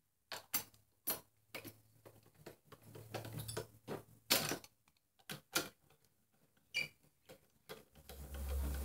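Small valve body bolts on a VW 09G automatic transmission being set in and run down by hand with a socket on a speed handle: irregular light metallic clicks and taps. A low rumble comes in near the end.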